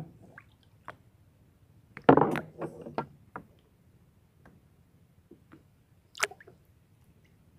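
Underwater sound picked up by a submerged camera: scattered sharp clicks and knocks, with a louder stretch of knocking and rustling about two seconds in that lasts about a second and a half, and another sharp click about six seconds in.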